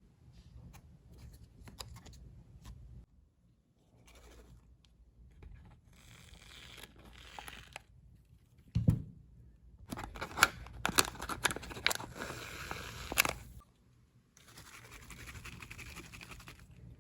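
Slime being handled and worked by hand: soft sticky scraping and squishing, with a low thud shortly before nine seconds in. A run of sharp crackles and pops follows for about three seconds, then it turns soft again after a short pause.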